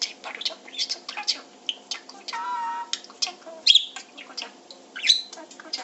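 Pet parakeets chirping and chattering in quick short calls and clicks, with one held whistled note lasting about half a second a little after two seconds in.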